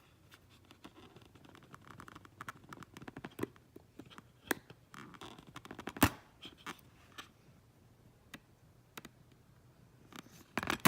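Small tools and fingers working inside an iPhone during a screen repair: faint scattered scratches, taps and ticks, with a sharper click about six seconds in and another near the end.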